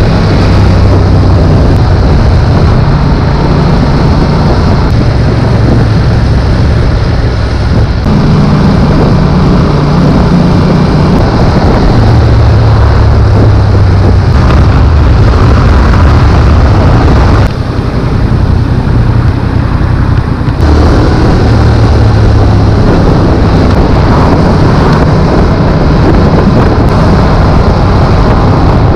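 Yamaha XSR700's 689 cc parallel-twin engine running loud, its note stepping up and down several times, with a lull about two-thirds of the way through before it picks up again.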